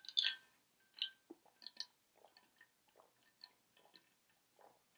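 A person chewing food with faint, irregular mouth smacks and clicks, the louder ones in the first two seconds.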